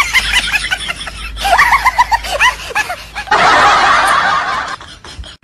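A man snickering and giggling in short, quick bursts, twice over, followed by a loud, harsh rush of noise lasting about a second and a half.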